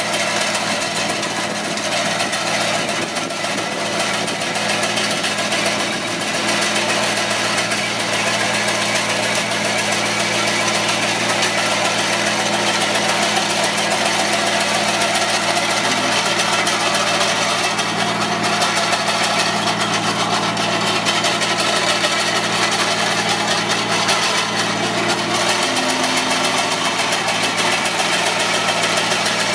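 Avant 635 compact loader's diesel engine running steadily under load, powering the hydraulic Slanetrac finger-bar hedge trimmer as it cuts through hedge branches.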